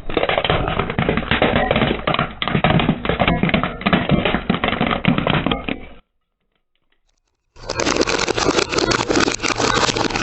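Brittle objects being crushed, a dense run of crunching and crackling with many small cracks. It stops suddenly about six seconds in, and after a short silence a second crunching stretch starts.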